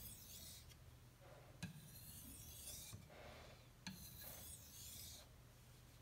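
ESEE-3MIL knife blade stroked back and forth on a Suehiro Debado whetstone in polishing passes: a faint hissing scrape, about three strokes, two of them starting with a light tick as the edge sets down on the stone.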